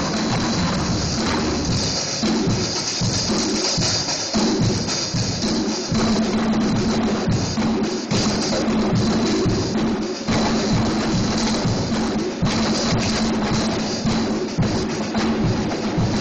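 Two drummers playing drums together: a fast, dense, unbroken beat of drum hits under a constant wash of cymbals.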